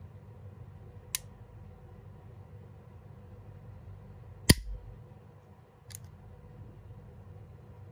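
Three sharp metallic clicks from a stainless target pistol being dry-fired by hand. They come about one, four and a half and six seconds in, and the middle one is much the loudest, with a short low thud.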